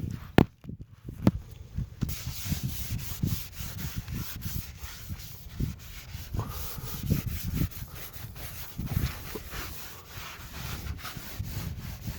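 A rag rubbing and scrubbing over a sanded fiberglass pool repair, wiping it down with acetone to clear the dust before gel coat. A couple of sharp knocks come in the first second, and the steady rubbing starts about two seconds in.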